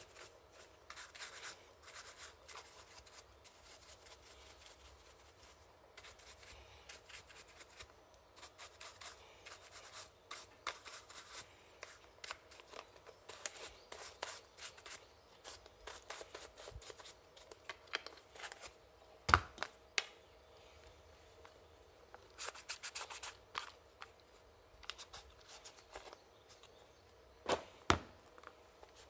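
A hand brush scrubbing and scratching over the plastic cases of Futaba servos and a radio box on an RC car's servo mount, in many short strokes. Two pairs of sharp knocks stand out, about two-thirds of the way through and near the end.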